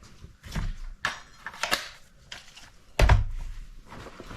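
Knocks and clinks of tools and metal parts being handled, with one heavy thunk about three seconds in.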